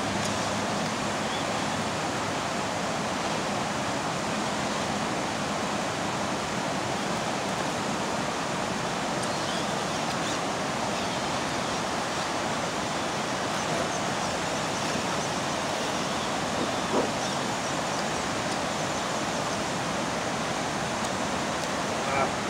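Steady rush of river water tumbling over rocky shoals and a low weir, with two short knocks, one past the middle and one near the end.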